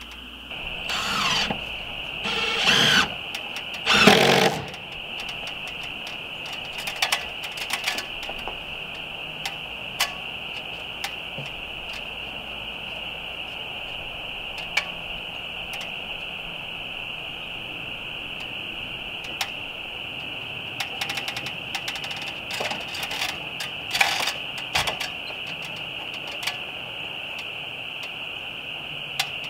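Cordless drill-driver run in three short bursts near the start, as when driving screws into the siding trim, followed by scattered light clicks and knocks from tools being handled. A steady high whine sits underneath.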